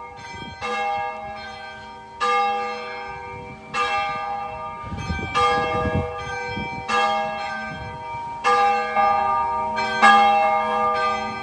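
Church bell ringing, a stroke about every second and a half, each ringing on into the next.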